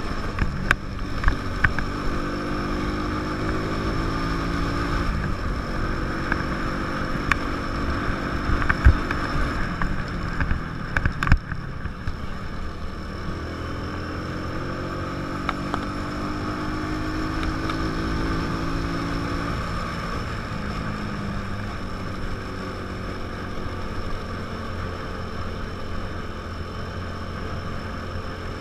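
Small motorcycle engine pulling up a hill, its pitch climbing through a gear and dropping at the shift, twice, over wind rushing past the microphone. A few sharp knocks come in the first half.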